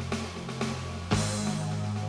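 Background music with a steady beat of about two strokes a second over held bass notes; about a second in, a loud hit lands and the bass moves to a new chord.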